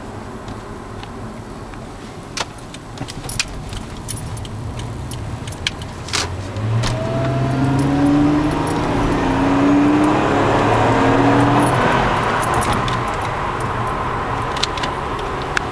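Supercharged V6 of a TRD Aurion heard from inside the cabin, pulling harder from about six seconds in, its note climbing in three steps over the next several seconds before easing off. Small clicks and rattles from the cabin come through throughout.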